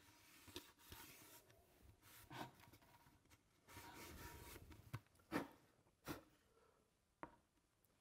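Faint rubbing of a cloth wiping the plastic flange sealing surface of a steam cylinder, cleaning it for a new O-ring, with a few soft clicks and knocks from handling the cylinder.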